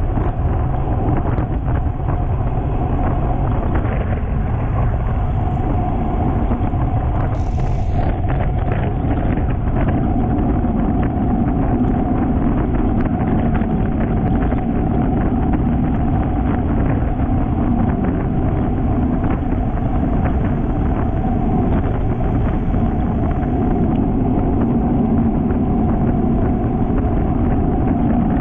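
Steady wind rushing over the microphone of a camera on a road bicycle at speed, with a constant drone of tyre and road noise beneath.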